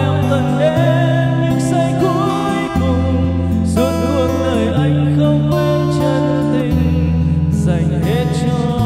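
A slow karaoke song played loud through floor-standing G1000 Plus karaoke speakers and a subwoofer: a backing track with steady bass notes and guitar, and a man's voice singing along into a wireless microphone.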